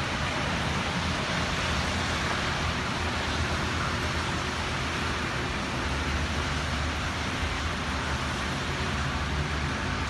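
Steady rain falling, an even hiss over a low rumble.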